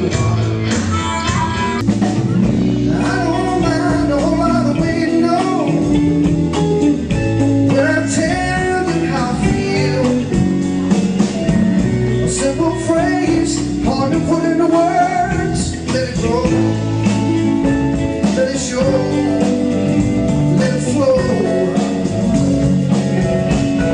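Live concert recording of a male singer's lead vocal with band accompaniment; partway through it changes to him singing while playing acoustic guitar.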